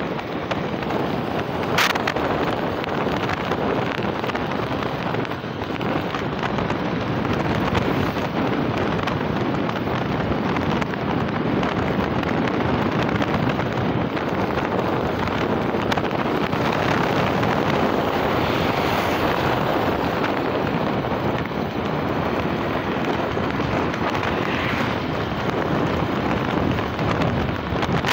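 Steady rush of wind buffeting the microphone on a moving motorcycle, with the motorcycle's running and tyre noise mixed in. A short sharp click about two seconds in.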